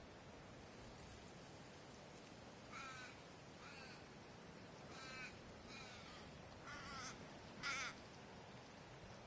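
A crow cawing six times in short harsh calls, a little under a second apart at first and then more spaced, the last the loudest, over faint background hiss.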